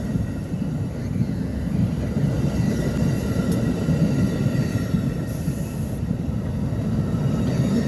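Amtrak California Zephyr passenger train rolling on the rails: a steady low rumble.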